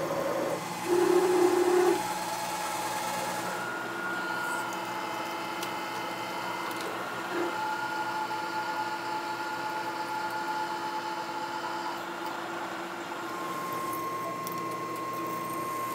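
Milling machine spindle running with a steady whine while drilling and reaming holes in a cast iron block, with a louder stretch of cutting about a second in. A higher tone joins the whine near the end.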